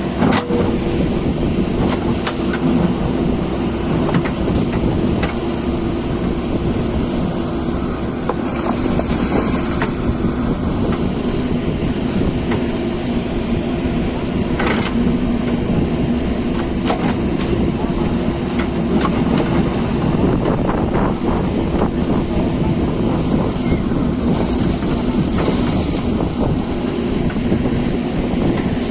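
Diesel engine of heavy earthmoving machinery running steadily under load, with scattered sharp knocks and scrapes.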